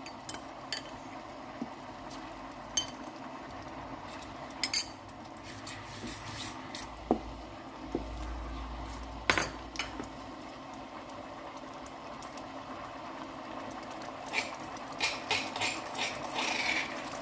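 A wooden spatula knocks and scrapes against a non-stick electric cooking pot while a thickened chilli sauce cooks in it. There are scattered sharp knocks, more frequent near the end, over a steady low cooking noise.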